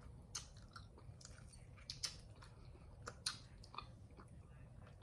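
A person chewing a burger close to the microphone: faint, irregular wet mouth clicks and smacks.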